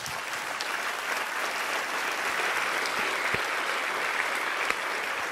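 Congregation applauding.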